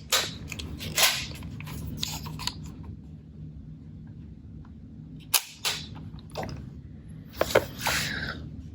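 Kodak Instamatic 32 camera being worked by hand: several sharp mechanical clicks at irregular gaps from its shutter and winding mechanism, with quieter handling noise between.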